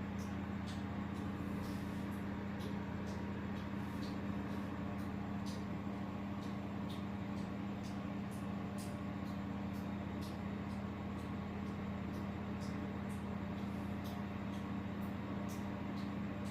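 A steady low mechanical hum, like a small motor or engine running at constant speed, with faint irregular ticks over it.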